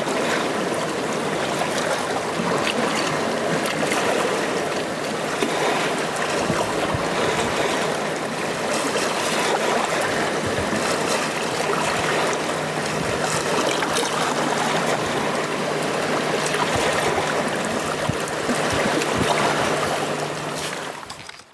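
Sea waves washing and splashing in a continuous wash, with a faint low steady hum beneath in the second half. The sound fades out right at the end.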